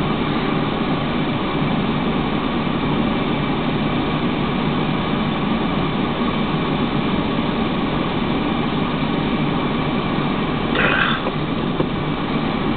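Steady noise of a running car heard from inside the cabin, with a brief rustle about 11 seconds in.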